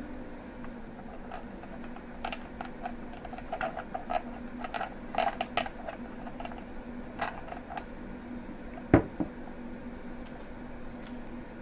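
Hands handling small hardware parts over a clear acrylic frame make irregular light clicks and taps, with one sharper knock about nine seconds in as something is set down. A steady low hum runs underneath.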